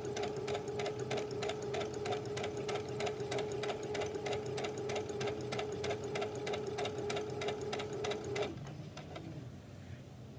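Brother domestic sewing machine stitching through layers of tulle at a long stitch length: a steady motor hum with an even, rapid needle clatter, stopping abruptly about eight and a half seconds in.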